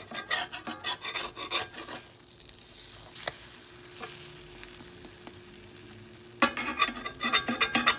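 Pancakes frying in a greased cast iron skillet, sizzling, while a spatula scrapes and taps against the pan for the first couple of seconds and again near the end. The pancakes are sticking to the pan for lack of oil.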